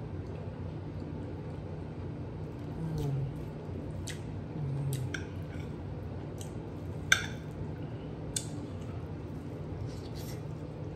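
A fork clicking and scraping against a plate as casserole is cut and eaten, a handful of sharp clicks with the loudest about seven seconds in. Two short closed-mouth 'mm' hums come with the chewing.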